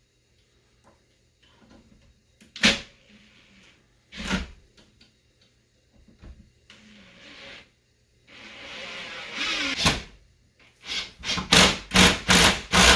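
Sharp knocks and clatter as the casters and hardware are handled on a hardwood workbench: single knocks a few seconds apart, a stretch of scraping noise about eight seconds in, then a quick run of about six knocks near the end.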